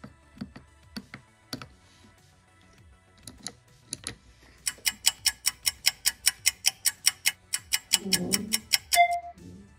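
Small tactile push-buttons and a slide switch on a Cretile pulse-and-delay kit module clicking as they are pressed, a few separate clicks. Then a rapid, very even ticking, about six a second for four seconds, ending in a short beep.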